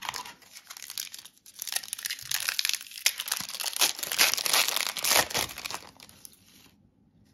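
Foil wrapper of an Upper Deck hockey card pack being torn open and crinkled by hand: a dense crackle that grows louder through the middle and stops about a second before the end.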